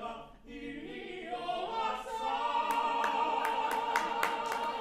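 Ensemble of opera singers ending a number on a long held final chord. Scattered audience clapping starts about halfway through and grows.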